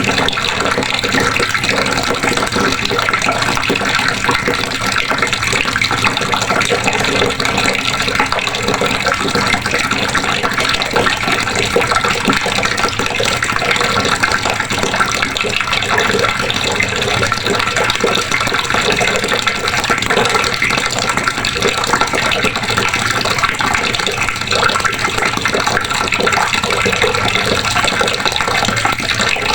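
Water running steadily from a faucet, splashing into a basin or container below.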